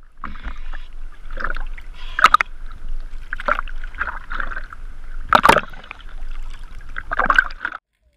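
Choppy sea water sloshing and splashing over a camera held at the surface, in irregular splashes over a steady low rumble; it cuts off abruptly near the end.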